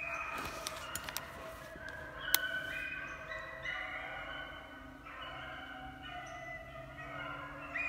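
A pack of beagles baying in chase, many long overlapping howling notes at once: the hounds are running a rabbit's scent trail. A few sharp snaps or clicks come in the first few seconds, the loudest about two and a half seconds in.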